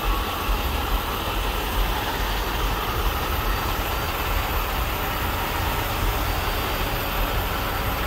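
Heavy rotator tow truck's Cummins ISX diesel engine idling steadily, mostly a low sound with a faint hiss above it.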